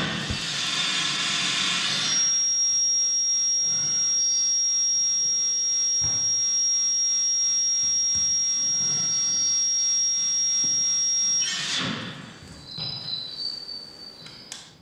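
Live audio feedback between a dancer's body-worn microphone and the stage loudspeaker: a loud, steady high-pitched whistle over several fainter held tones. The whistle breaks off about twelve seconds in, leaving quieter, wavering high tones.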